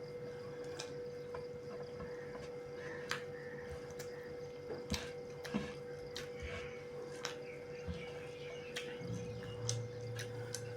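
Eating sounds at a meal of pork and rice: scattered small clicks and taps of chewing and dishes at irregular intervals, over a steady hum.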